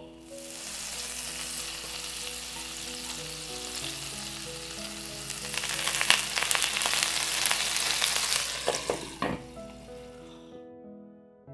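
Water sizzling and spitting in a hot nonstick frying pan around soufflé pancakes, added to steam them after flipping. The sizzle grows louder and crackly about halfway through, then dies away near the end as the lid goes on.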